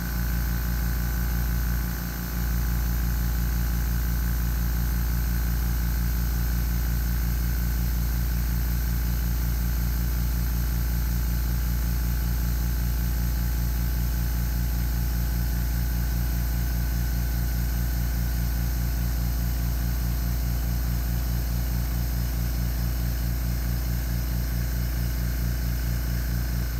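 Fortress 1-gallon Ultra Quiet oil-free air compressor running continuously as a steady hum with a fast, even pulsing from the pump, while air is drawn off nonstop. The compressor is keeping up with the demand, holding at about 45 PSI.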